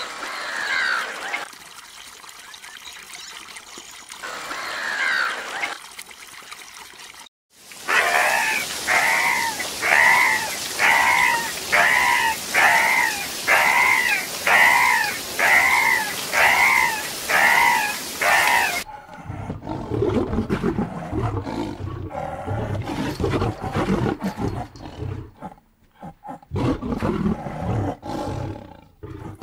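Two short falling calls over water, then a run of about a dozen evenly spaced chirping dolphin calls, roughly one a second, over a steady hiss; after a cut, a tiger cub's low, rough growling grunts.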